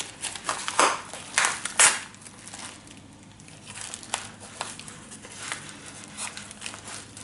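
Yellow padded paper mailer envelope being torn open by hand: paper crinkling and tearing, with a few louder tears in the first two seconds and softer crinkling after.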